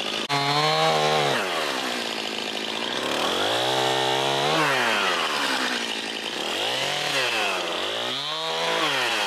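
Stihl chainsaw cutting brush, revving up and dropping back about four times, so its engine pitch rises and falls.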